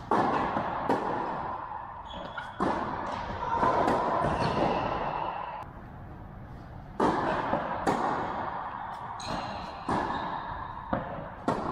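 Tennis ball struck by rackets in a rally, a string of sharp hits a second or more apart, each ringing out with a long echo in a large indoor tennis hall.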